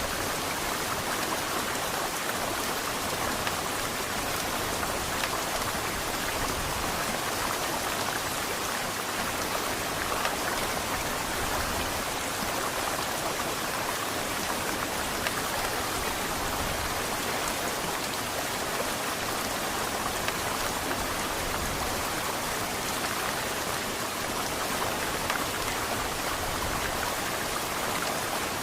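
Heavy rain falling steadily, a dense even patter with no let-up.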